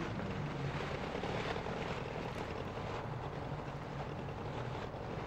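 Steady low engine drone, running evenly without change.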